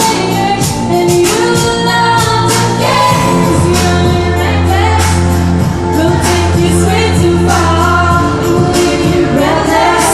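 A song with a singing voice over instrumental backing with a steady beat and sustained bass notes.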